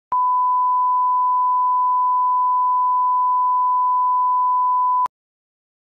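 A single steady electronic beep tone, held for about five seconds, starting and stopping abruptly with a click at each end.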